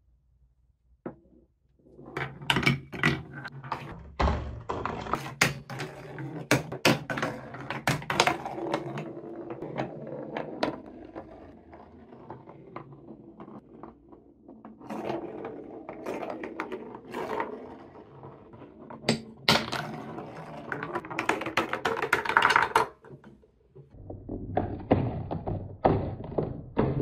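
Wooden ball rolling down a marble run of wooden and plastic track pieces: a single click, then a continuous rolling rumble broken by frequent sharp clacks and knocks as it drops and strikes the pieces. Near the end it briefly goes quiet, then a smoother, duller rolling sound follows as it travels along the wave-shaped slope track.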